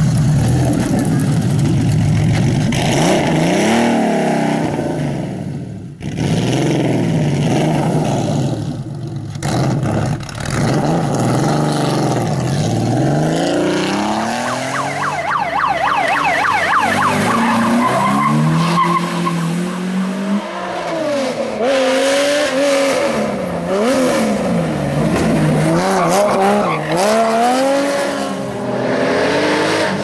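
Rally cars driven hard one after another through tight bends, among them air-cooled Porsche 911 flat-sixes and a Peugeot 206. Their engines rev up and fall away again and again through gear changes and lifts, with tyre squeal.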